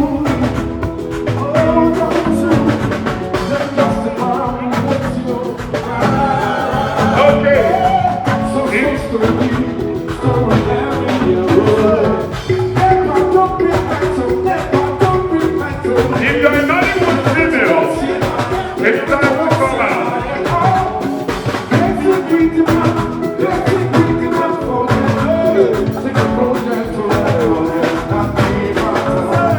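Music playing: a singing voice over a steady beat with drums.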